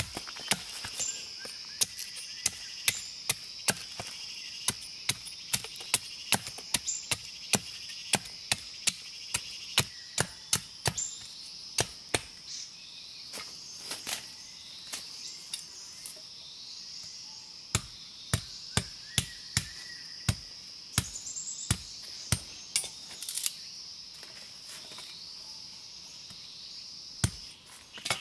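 Blade chopping at bamboo: sharp single blows at about two a second, with a couple of short pauses. Insects buzz steadily behind it.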